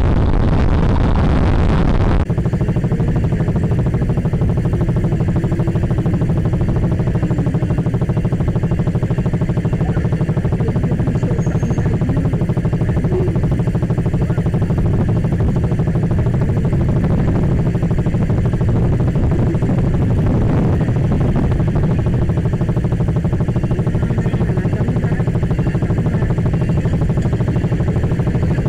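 Wind and road noise on a motorcycle-mounted camera at riding speed. About two seconds in this cuts to the steady idle of the KTM Duke 200's single-cylinder engine with the bike stopped.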